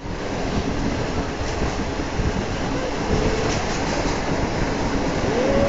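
Train running along the track, heard through an open carriage window: a steady rumble and rattle of wheels on rails. A few faint short whining squeals come in around the middle and near the end.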